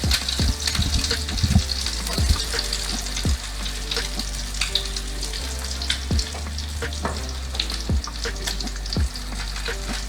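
Egg-dipped ham and cheese sandwich sizzling in a frying pan: a steady hiss with frequent small pops and crackles.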